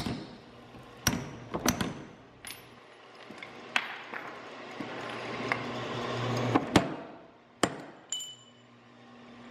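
Power hammer landing single, irregular blows on a hot double-bit axe head held in tongs, each a sharp metallic strike with a ringing clink from the steel and tongs. The loudest blow falls about two-thirds through, and a low machine hum swells between blows in the middle.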